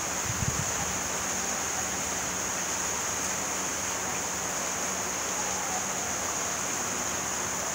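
Steady, even hiss of falling rain, with a brief low thump about half a second in.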